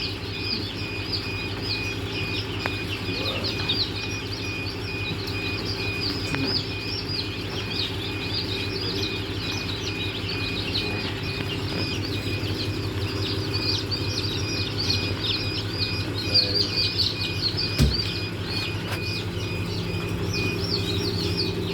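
Many newly hatched Improved Kienyeji chicks peeping without pause, dozens of short high chirps overlapping. A steady low hum runs under them.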